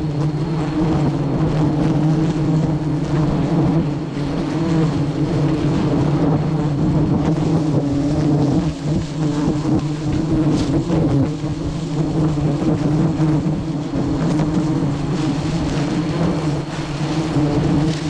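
Swarm of wild honeybees buzzing around their hives, a dense, steady low drone.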